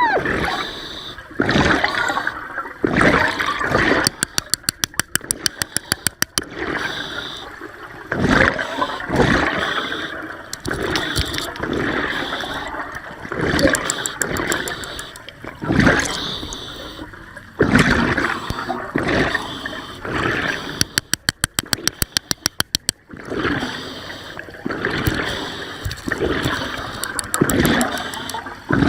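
Water swirling and gurgling around the camera, surging every second or two, with two runs of rapid, even clicking, one a few seconds in and one about three quarters of the way through.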